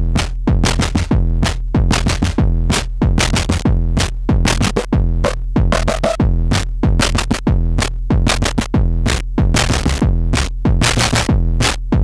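WMD Kraken eurorack synthesizer module played raw in a modular patch: a fast clocked run of sharp, bright percussive hits, about four a second, over a heavy low end.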